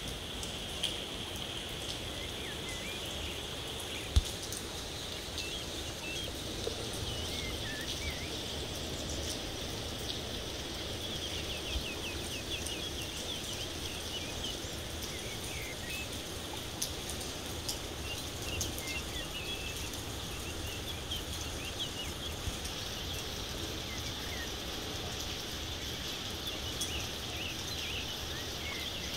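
Steady hiss of light morning rain, with small birds chirping on and off through it and a few sharp taps, the loudest about four seconds in.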